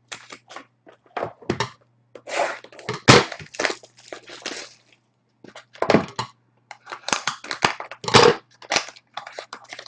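Cardboard trading-card boxes being torn open and foil card packs handled, an irregular run of tearing and crinkling with three louder thunks as things are set down on the desk, about 3, 6 and 8 seconds in.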